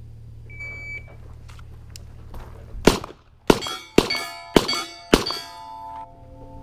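A shot timer beeps once, then a pistol fires five quick shots about half a second apart at steel plates, which clang and keep ringing after the hits.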